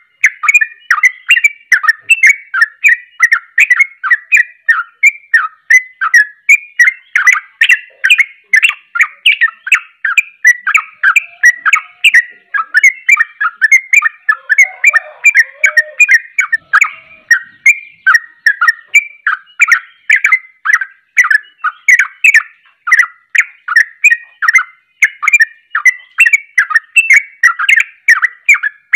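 A yellow-vented bulbul (trucuk) singing an unbroken, rapid string of short chirping whistled notes, about three a second, with no pauses. This is the fast rolling song that keepers call 'ropelan', sung by a bird in full voice.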